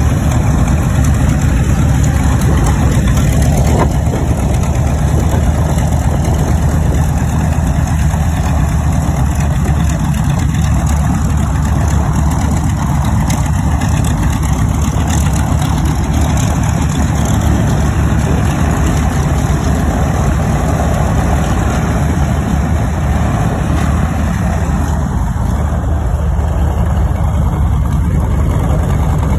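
A Grumman TBM Avenger's Wright R-2600 fourteen-cylinder twin-row radial engine running steadily at low taxi power, a deep even drone as the torpedo bomber taxis past.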